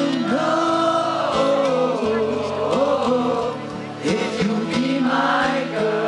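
Live band performing a pop song: a male lead voice sings over acoustic guitar, keyboards and drums, with a steady beat.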